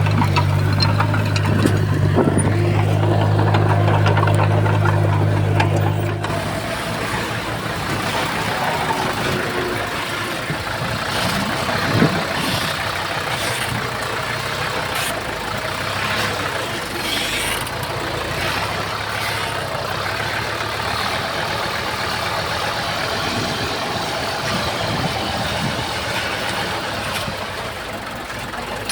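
Heavy earthmoving machinery's diesel engine running, with a strong low drone for the first six seconds or so that then drops away abruptly. The rest is a steadier engine noise with scattered knocks, one sharper than the others about twelve seconds in.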